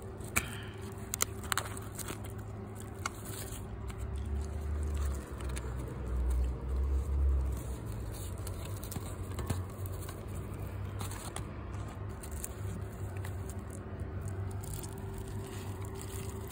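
Plastic cling wrap crackling and foam meat trays being handled, with scattered sharp clicks and taps. About four seconds in, a low rumble of handling on the microphone rises for a few seconds, under a faint steady hum.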